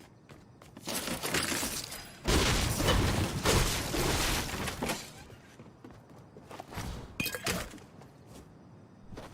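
Handling noise: several seconds of rustling and scraping, loudest in the middle, followed near the end by a few sharp clicks.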